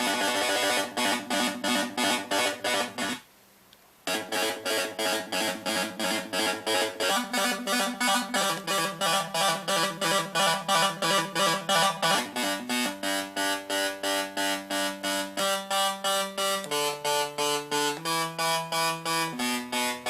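Electronic sound-effects synthesizer giving a buzzy, rapidly pulsing tone, about four pulses a second, like an alarm. It stops for under a second about three seconds in, then returns and steps up and down between different pitches.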